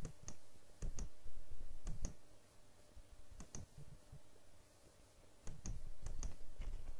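Sharp clicks at a computer, a handful spread unevenly, some in quick pairs, as the slides of pictures are stepped through.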